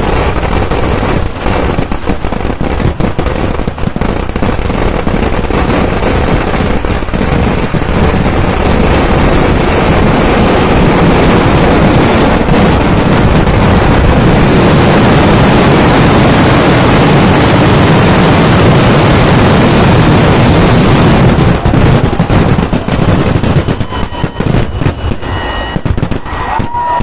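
Temple-festival fireworks barrage (vedikkettu): firecrackers going off in rapid, dense succession like machine-gun fire. Through the middle the bangs merge into one continuous din, then thin out into separate cracks near the end.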